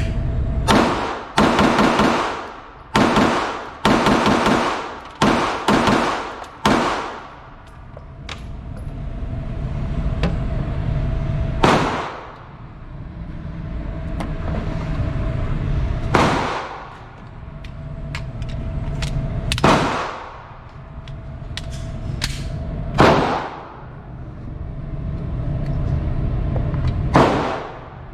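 Gunshots at a shooting range: a quick string of about eight shots in the first seven seconds, then five single shots a few seconds apart, over a steady low rumble and a faint hum.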